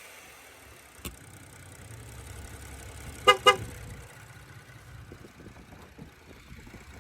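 Car horn giving two short toots in quick succession, over a low engine rumble, with a faint click shortly before.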